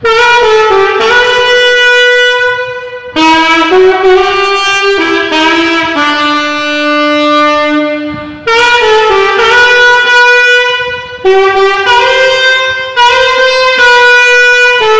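Solo alto saxophone playing a melody in E major, in several short phrases with brief breaths between them and a long held low note about halfway through.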